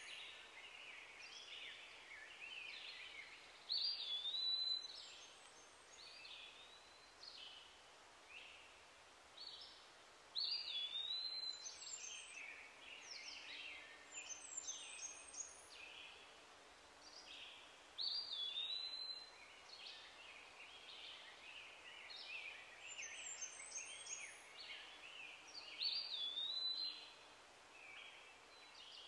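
Birds singing and chirping over a faint steady hiss. One song phrase, with a whistle that dips and swoops up again, repeats every seven seconds or so and is the loudest thing each time.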